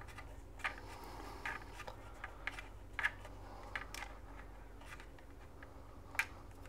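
Faint, irregular small clicks and ticks of a T4 Torx screwdriver turning a small screw into the plastic body of a DJI Avata 2 drone while the mount and drone are handled.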